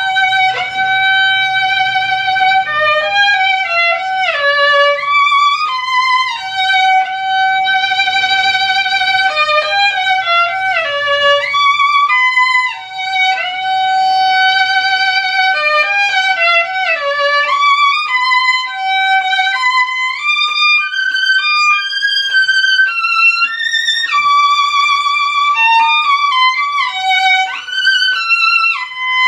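Solo violin playing a simple melody with vibrato on the long held notes. A phrase of a long held note that then steps down comes three times before the tune moves higher.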